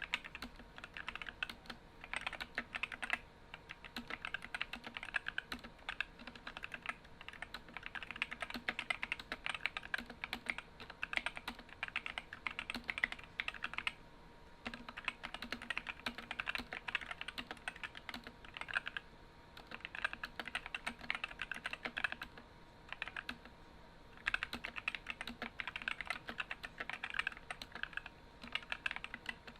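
Typing on an Epomaker SK64 mechanical keyboard with stock, unlubed Gateron optical red linear switches and ABS keycaps: rapid, dense keystroke clicks in runs, with short pauses now and then.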